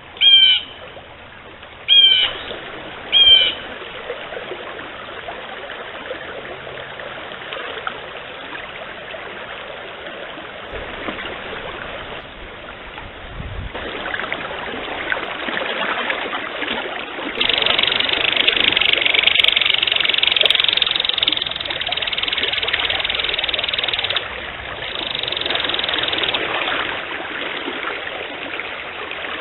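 A bird gives three short calls, each sweeping downward, in the first few seconds over the steady rush of a stream. The water sound then grows louder and steps up and down abruptly several times.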